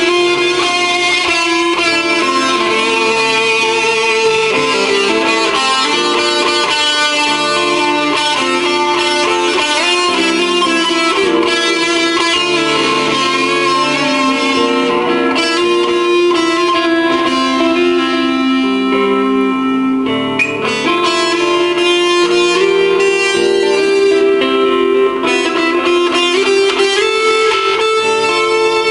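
Electric guitar, a PRS S2 with Bare Knuckle pickups played through a PRS amplifier and Altec speaker, playing sustained melodic lines over lower held notes, washed in reverb and delay.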